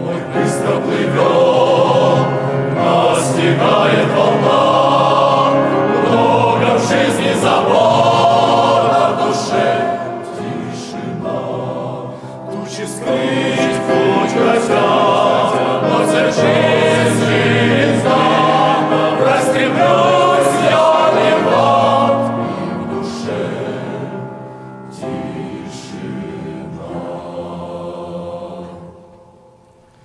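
Men's choir singing a Russian-language hymn in several parts. The singing swells and eases, grows softer over the last several seconds, and breaks off shortly before the end.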